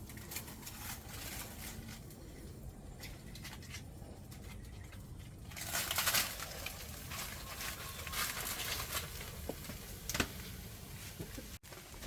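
Crinkling and rustling handling noises, louder in bursts about six seconds in and again around eight seconds, with a short sharp tap near ten seconds.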